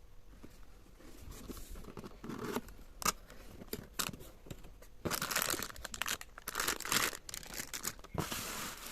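Plastic packaging being handled and pulled open: crinkling and tearing with a few sharp crackles, growing into denser rustling about halfway through.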